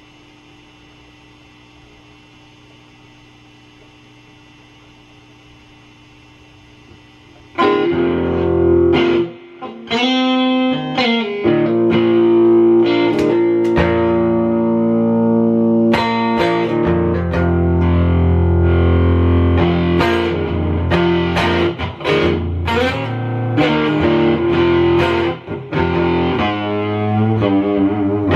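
A faint steady hum from the guitar rig, then about seven and a half seconds in, electric guitar played loudly through distortion, with single notes and sliding, bending pitches.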